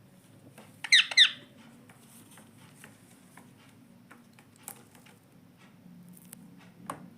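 Indian ringneck parakeet giving two quick, sharp squawks about a second in, followed by faint scattered clicks and taps.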